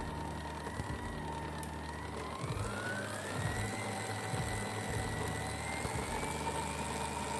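Electric stand mixer running, its flat beater churning crumbly butter-and-flour dough in a steel bowl. The motor's whine rises in pitch two to three seconds in and then holds steady.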